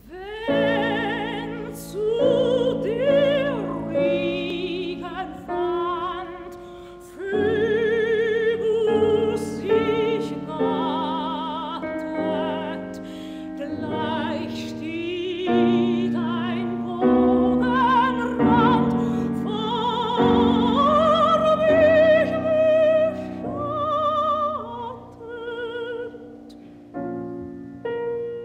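Soprano singing a German art song with piano accompaniment, in a wide operatic vibrato, phrases rising and falling over held piano chords. The old 1953 recording sounds dull, with little treble.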